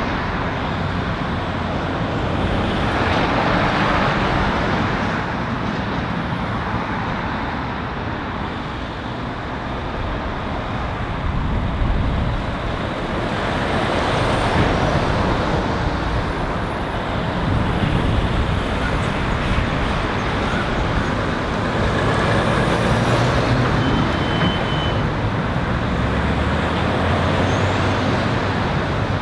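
Road traffic at a roundabout: cars and heavy articulated lorries driving past one after another, the diesel engine rumble and tyre noise swelling and fading as each goes by.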